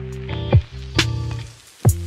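Background music with a steady beat: deep kick drum hits, a sharp snare and sustained bass and chord notes.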